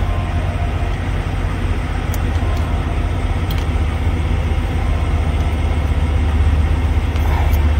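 Steady low engine drone, like a heavy vehicle idling close by, with a few faint light taps.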